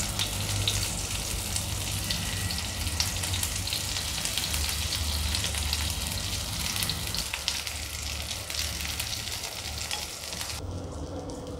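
Hot oil sizzling and crackling in a flat pan as egg batter fries inside onion rings, with a dense patter of small pops. It cuts off abruptly near the end.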